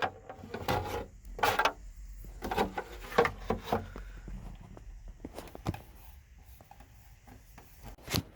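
Hard plastic dash parts rubbing, scraping and knocking as a radio mounting tray is worked into place in a pickup's dash, in scattered short strokes.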